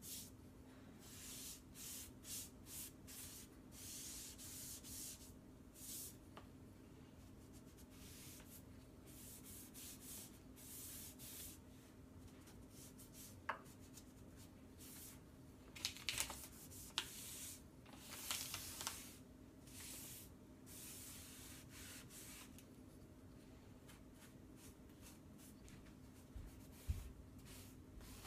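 Foam brush strokes spreading wood stain on a cabinet frame: faint, irregular soft swishes and rubs, a few louder scuffs near the middle, over a faint steady hum.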